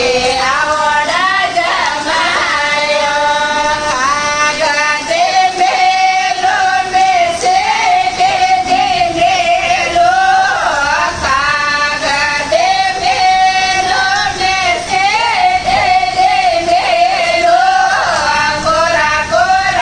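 Female voice singing a Marwari jamai geet, a folk wedding song (gaali) that teases the son-in-law, with a continuous wavering melody.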